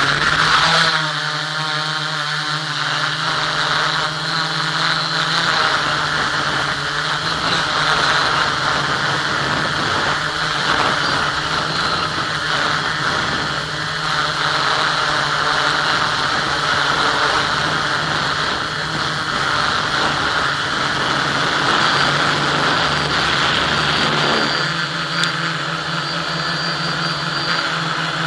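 Electric motors and propellers of an FPV model aircraft, heard from its onboard camera. They spool up loud for takeoff about a second in, then run with a steady whirring hum in flight.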